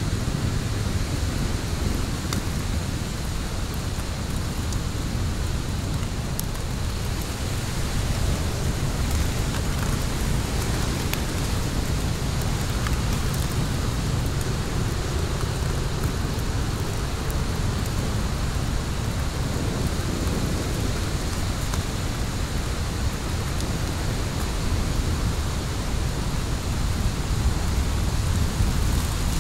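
Fire burning in a fire pit: a steady low rushing with a few small crackles and pops scattered through it.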